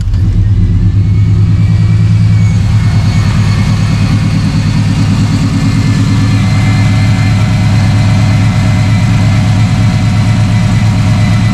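V8 engine idling steadily just after a cold start, with a loud, even, low exhaust hum.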